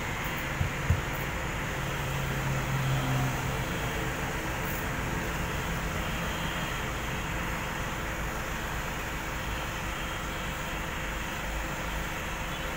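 Heat gun blowing steadily as it heats window tint film on a car windscreen, with two sharp clicks about a second in.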